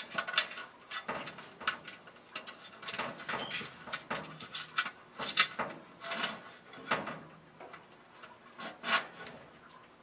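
A bundle of furnace wires being pushed through a grommet in a sheet-metal panel: irregular rubbing and scraping with short clicks of wire against metal, thinning out toward the end.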